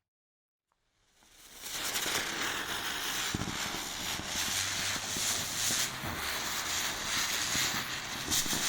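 Ground spinner firework burning: after a second of silence a hiss builds up over about a second, then holds as a dense, steady spray with fine crackles through it.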